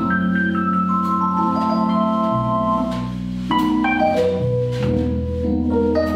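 Jazz piano trio playing a slow ballad: sustained piano chords over held double bass notes, with light cymbal strokes from the drum kit.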